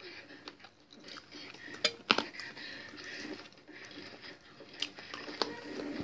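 A person chewing a mouthful of fried chicken close to the microphone, with wet squishy mouth sounds and lip smacks; the sharpest smacks come about two seconds in and again around five seconds.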